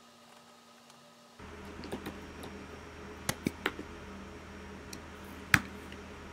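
Computer keyboard keys clicking in a handful of irregular keystrokes as code is typed, with one sharper click near the end. A low steady hum of room noise comes in about a second and a half in.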